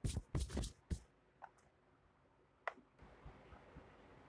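A few faint clicks close together in the first second, then two single ticks further on, with quiet between them.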